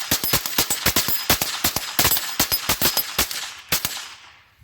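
A rapid, uneven string of gunshots, several a second, that stops about four seconds in, with the last shot's echo dying away.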